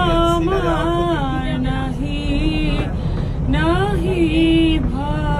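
A song with a solo voice singing long held notes with wavering ornaments, over a steady low rumble of vehicle road noise.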